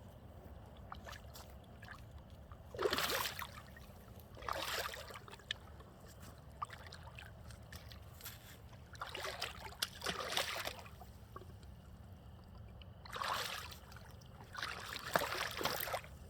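Water splashing in about five short bursts of a second or two each, over a steady low hum.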